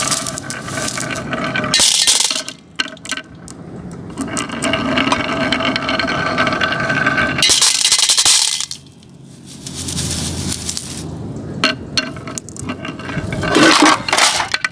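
Marbles rolling and clattering down a Haba wooden marble run: a continuous rolling rumble with a ringing tone, broken by clicks and knocks as they strike the track pieces, dropping away briefly a little after the middle.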